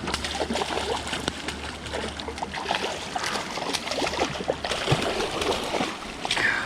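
A large wild brown trout thrashing and splashing in the shallow creek as it is brought in, many quick splashes over the steady rush of the flowing water.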